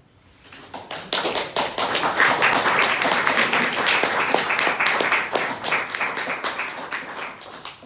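Audience applauding, building up about a second in and tapering off near the end.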